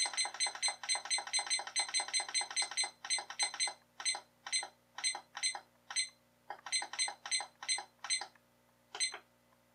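DreamSky digital alarm clock beeping with each press of its set buttons as the time is advanced. First comes a fast run of short electronic beeps for about four seconds, then single beeps about twice a second, another quick cluster, and a last beep near the end.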